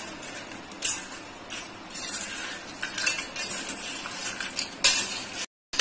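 A steel fork tossing crisp fried tortilla chips in a stainless steel bowl: irregular scraping and light clinking of fork on bowl with the rustle of the chips, and a sharper clink about a second in and again near the end.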